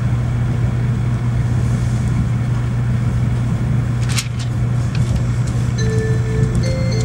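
Cabin noise inside a Shinkansen Nozomi bullet train under way: a steady low hum over rolling noise, with a brief high squeak about four seconds in. A few clear electronic chime tones begin near the end.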